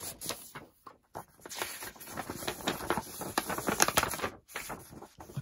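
Stiff paper rustling and crinkling as a folded paper insert, a map-like replica, is handled and unfolded. There is a short lull about a second in, and the crackling is busiest and loudest in the middle.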